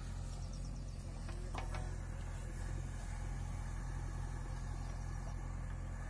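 Diesel engine of a JCB 3DX backhoe loader running steadily while the backhoe works soil, a continuous low drone.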